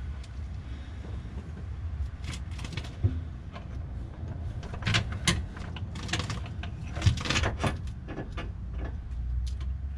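Irregular metallic clinks, knocks and scrapes as a car's power steering rack is handled and worked into place from underneath, busiest in the middle of the stretch, over a steady low rumble.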